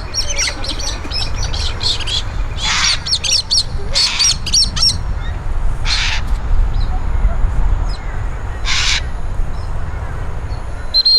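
Birds calling: a quick run of high, twittering chirps, then four separate harsh screeches spaced a second or two apart, typical of parrots. A steady low rumble sits underneath.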